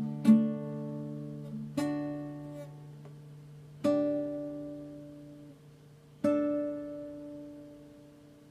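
Nylon-string classical guitar played slowly: four chords plucked one at a time, each left to ring and die away. These are the closing chords of the piece, and the last one fades out near the end.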